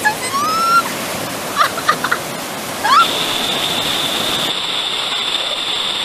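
Steady rush of white water pouring over a rock cascade at a waterfall, with a few short rising shouts in the first three seconds.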